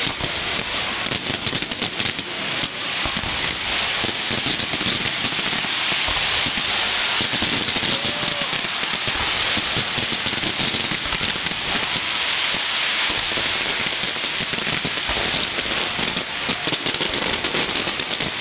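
Fireworks crackling densely and without a break, countless small pops running together into one continuous crackle.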